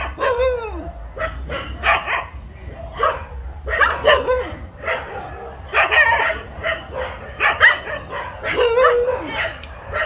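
Several dogs barking and yelping, with short calls overlapping one after another and a few longer, drawn-out whining calls among them.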